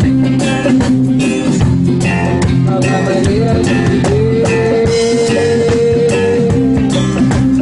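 Live band playing a song: guitar over a drum kit's steady beat, with a long held note from about four seconds in.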